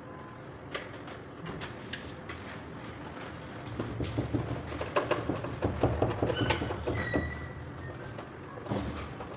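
Irregular clicks and knocks of plastic and metal as a split air conditioner's indoor unit is handled and fitted on its wall mounting, thickest about four to seven seconds in, over a low rumble.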